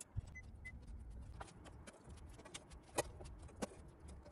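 Faint, scattered light clicks and metallic taps from small screws and nuts being handled and fitted into the amplifier's metal case, with two louder clicks about three seconds in.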